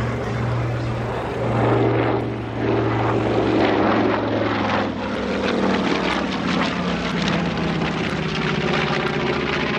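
The twin Wright R-2600 radial engines of a B-25D Mitchell bomber drone as the plane flies past, with the engine note dropping in pitch about halfway through as it goes by.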